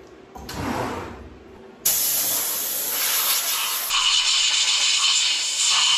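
Compressed-air blow gun hissing in a long, loud blast that changes tone partway through, blowing coolant and chips off the freshly milled part in the CNC mill's vise. A short, quieter rustle comes first, as the mill's enclosure is opened.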